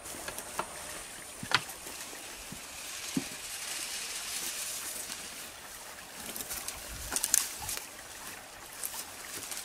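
Footsteps and rustling through tall grass as two people walk along a creek bank, with scattered light clicks and knocks; the crackling gets busier in the last few seconds.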